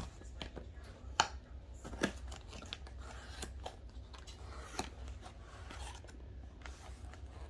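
Cardboard kit box being handled and turned over: scattered taps, scrapes and rustles, with sharper knocks about a second in, about two seconds in, and near the five-second mark.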